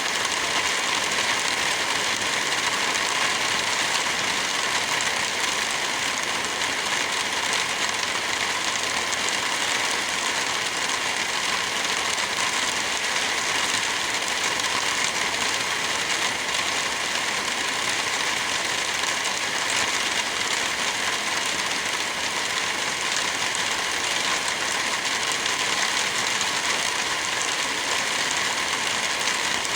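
Heavy rain falling steadily, an even hiss with no change in strength.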